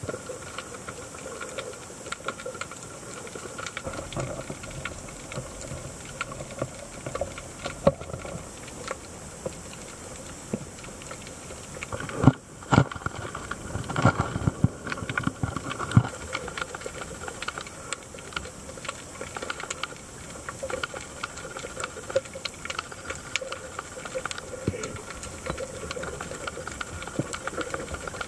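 Underwater ambience picked up by a camera in its housing: a steady hiss with a dense crackle of small clicks. About halfway through comes a short run of louder knocks and thumps.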